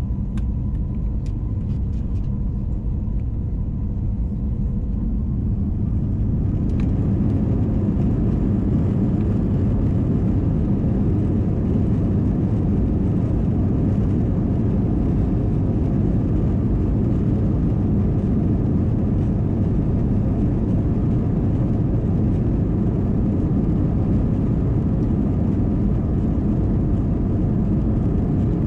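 Airbus A321 cabin noise on the ground: a steady low rumble from the engines and airframe as the aircraft taxis, a little louder from about seven seconds in.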